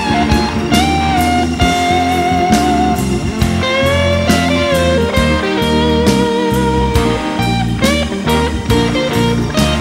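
Rock music: a lead electric guitar playing held, wavering and bending notes over a steady drum beat and bass.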